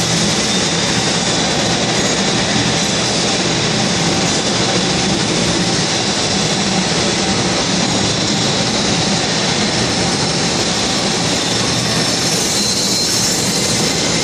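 Steady, loud industrial noise inside a car assembly plant, from its machinery and ventilation, with no distinct knocks or events standing out.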